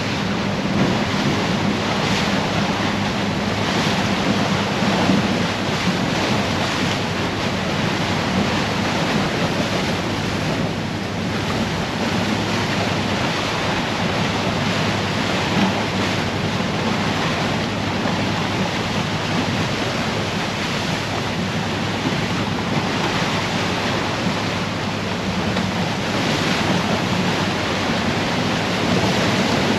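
Steady rush of water and wind as an icebreaker sightseeing boat pushes through broken drift ice, with a low engine hum underneath.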